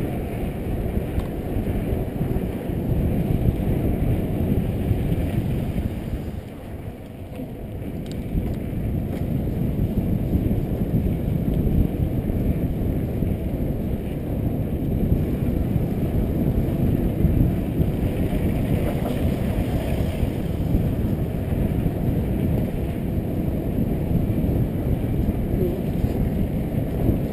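Wind rushing over a helmet-mounted camera's microphone on a moving downhill mountain bike, with the rumble of the tyres rolling over the street. The noise is steady, dips briefly a few seconds in, then builds again.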